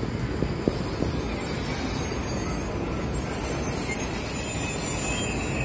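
2012 New Flyer C40LF compressed-natural-gas city bus pulling away from a stop and accelerating past, its engine and drivetrain running with a steady low rumble. A thin high-pitched whine sits over it from about half a second in until near the end.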